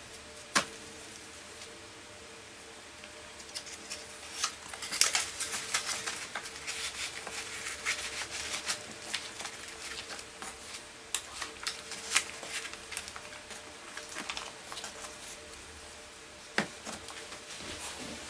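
Sheets of printing paper and tissue interleaves rustling and sliding as they are lifted and turned over in a cardboard archival box, with a run of small ticks and taps. There is a sharp tap about half a second in and another near the end, over a faint steady hum.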